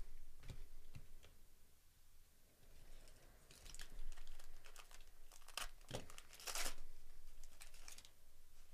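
Foil wrapper of a 2024 Topps Series 1 baseball card pack crinkling and tearing as it is ripped open by hand, with a few light handling clicks before it. The crinkling comes in bursts, loudest past the middle.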